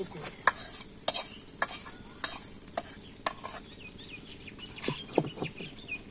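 Metal spatula scraping and clinking against an iron karahi (wok) as fried bitter gourd and fish are scraped out into a steel bowl: about six sharp strokes a little over half a second apart, then softer clatter as the pan is set down. A steady sizzle of hot oil runs underneath.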